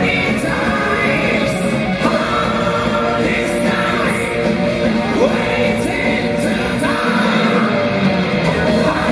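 Heavy metal band playing live, heard from the crowd: a lead vocalist sings over distorted electric guitar, bass, keyboards and drums.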